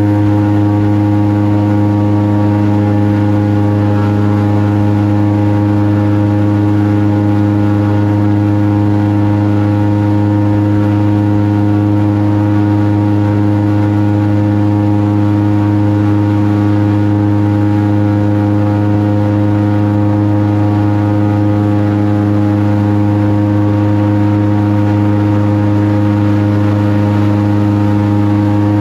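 Airboat's engine and large air propeller running at a steady cruising speed: a loud, unbroken drone with a strong low hum and no change in pitch.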